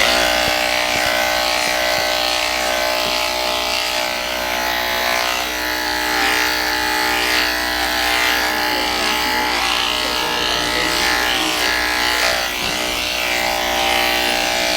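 Electric dog grooming clippers running with a steady buzz as they shave a poodle's coat short.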